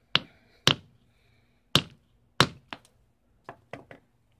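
Small hammer striking stone on a boulder, chipping a rock apart: four sharp metal-on-stone cracks in the first two and a half seconds, then several lighter clicks.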